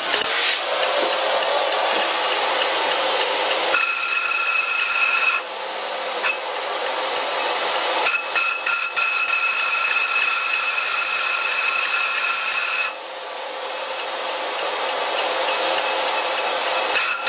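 Carbide tool facing a cast-iron lathe faceplate: a steady hissing cutting noise, with a high ringing squeal that comes and goes, briefly about four seconds in and then for most of the second half.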